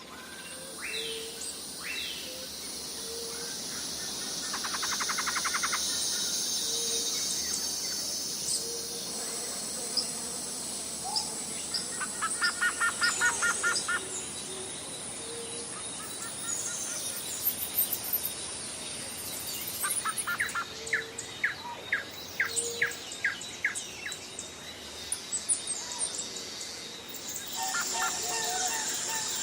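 Jungle ambience: many birds calling and chirping over a steady high insect drone. Twice, a bird gives a burst of rapid repeated chirps. A short low note recurs every second or two.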